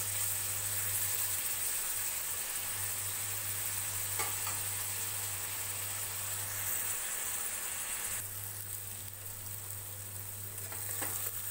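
Chopped onions sizzling as they fry in hot oil in a kadhai, stirred now and then with a steel spatula. The onions are at the early stage of releasing their water and turning translucent.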